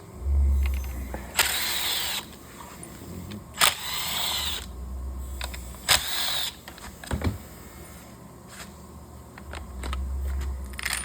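Ratchet working a screw out of a Stihl MS 400 chainsaw in three short bursts about two seconds apart. A low hum sits under the start and near the end.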